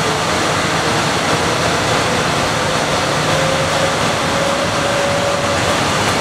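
Bombardier Innovia APM 100 people-mover car running along its guideway: a steady rumble and hiss of rubber tyres, with a motor whine that rises in pitch over the first few seconds as it gathers speed, then holds steady.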